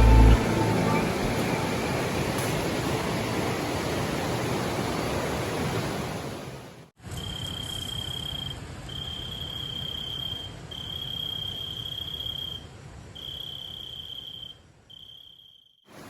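A steady rushing noise, then after a sudden cut about seven seconds in, an insect trilling at a high pitch in repeated phrases about a second long, separated by short gaps, over a fainter hiss.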